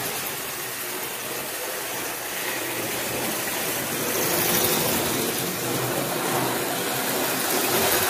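Model train running along the track: a steady rushing noise that grows louder about halfway through and again near the end as the train comes close.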